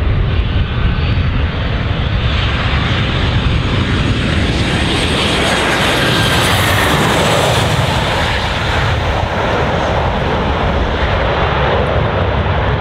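Jet airliner engines, Boeing 737 type, on a low landing approach: loud, steady engine noise with a high fan whine that swells about six seconds in as the aircraft passes closest, over a heavy low rumble.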